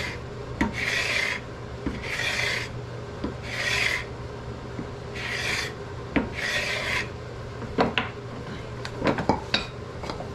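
Stanley No. 82 cabinet scraper, fitted with a carbide utility blade, scraping a maple board: about five scraping strokes, one roughly every second and a half, followed by a few sharp knocks near the end.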